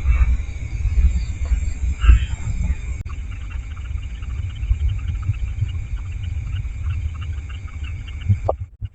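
Night insects such as crickets chirring steadily over a louder low rumble on the microphone. Everything cuts off abruptly near the end.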